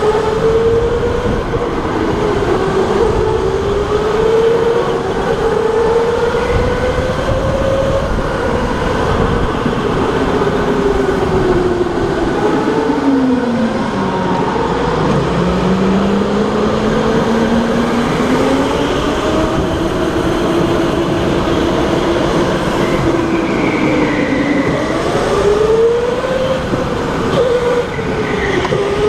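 Electric go-kart motor whining, its pitch rising and falling with the kart's speed; the pitch sinks lowest about halfway through as the kart slows for a corner, then climbs again, over steady tyre and road noise.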